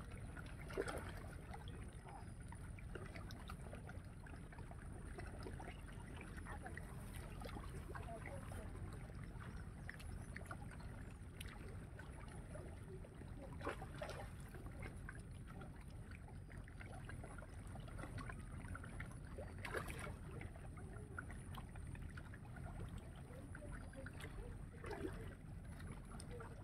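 Outdoor background ambience: a steady low rumble, likely wind on the microphone, with a few faint short ticks and knocks.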